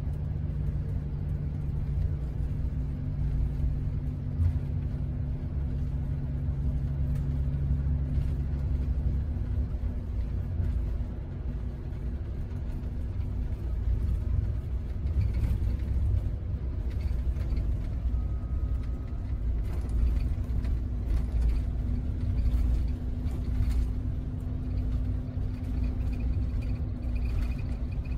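Scania double-decker coach driving along a highway, heard from inside the front of the upper deck: a steady low rumble of engine drone and road noise.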